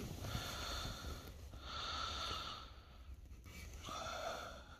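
A man's breathing close to the microphone: three soft, hissy breaths about a second and a half apart.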